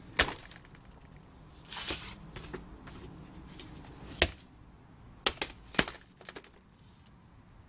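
Sharp clanks and taps of stamped metal Nissan Leaf battery module casings being handled and knocked against one another, a few single knocks and then a quick cluster of three near the end, with a brief brushing scrape about two seconds in.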